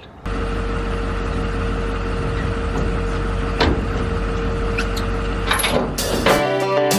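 A motor vehicle running, a steady low rumble with a steady hum and a few faint clicks. Music with guitar and banjo takes over near the end.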